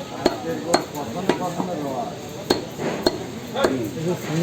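Butcher's cleaver chopping meat on a chopping block: about six sharp chops at uneven intervals, with voices in the background.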